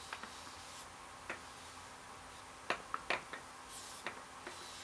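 A cloth in a nitrile-gloved hand wiping wet finish onto a cherry burl lid: scattered small clicks and squishes of the wet rag and glove on the wood, bunched together about three seconds in, over a faint steady hiss.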